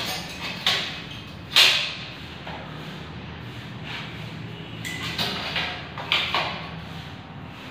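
Metal tile corner-bead trim strip being handled and set against the edge of the tiles: a few sharp knocks and scrapes, the loudest about a second and a half in, then another cluster of three or four about five to six and a half seconds in.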